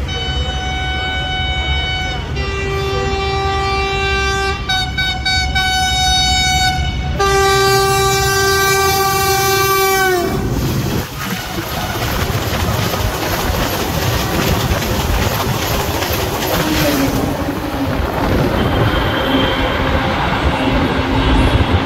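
A diesel locomotive's multi-tone air horn sounds in four long blasts as an Egyptian Railways Talgo express approaches at high speed. The last blast falls in pitch as the locomotive passes, and then comes the loud, steady noise of the train's coaches going by.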